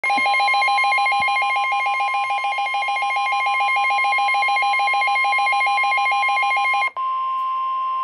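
NOAA weather radio receiver sounding an alert: a rapid electronic trill over a steady single tone near 1 kHz, the weather service's warning alarm tone that signals an emergency message. The trill cuts off near the end, leaving the steady tone alone.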